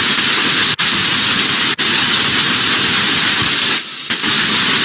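Fountain firework spraying sparks with a loud, steady hiss. The hiss cuts out for an instant twice and dips briefly near the end.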